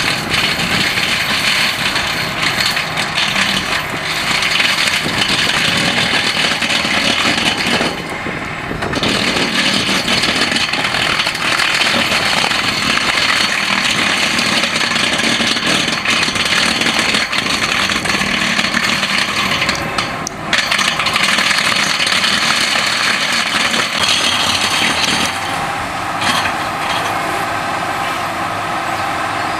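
Fendt 942 Vario tractor running under load while its Bugnot stone crusher grinds and smashes rock, a loud steady grating din over the engine. It eases off briefly twice, once about a third of the way in and again about two thirds in.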